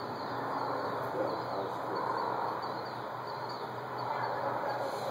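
Small birds chirping now and then, short falling chirps, over a steady outdoor background noise.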